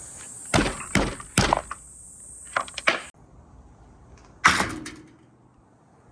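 Marbles rolling down a marble run's slopes with a run of sharp clacks and knocks over a high rolling hiss that cuts off suddenly about three seconds in. A single loud knock with a short ring follows a second and a half later.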